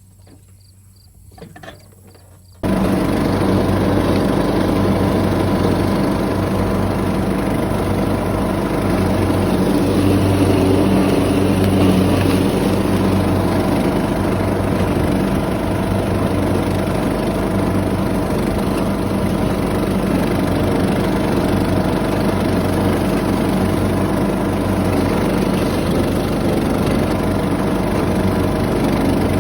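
Lawn mower engine running steadily under load, coming in abruptly a few seconds in with a low, even hum.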